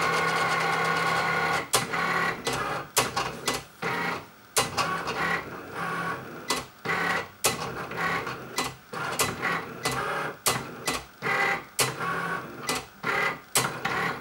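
Cricut Explore cutting machine running a job: its motors whirr steadily for a moment, then move the carriage and mat in short stop-start strokes with sharp clicks between them.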